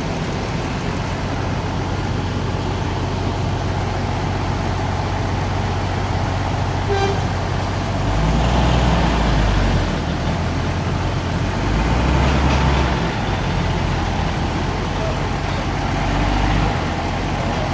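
Diesel engines of buses idling, a steady low hum that swells louder three times, with a brief horn toot about seven seconds in.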